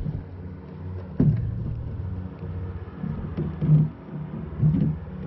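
Boat motor running steadily at low speed, a low even hum, with a few short knocks and thumps over it, the sharpest about a second in.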